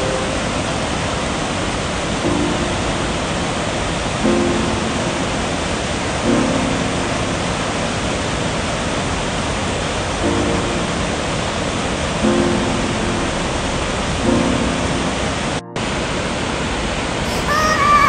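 Mountain stream or waterfall water rushing in a steady, loud hiss, with soft background music sounding a low chord about every two seconds. The sound cuts out for an instant about three-quarters of the way through.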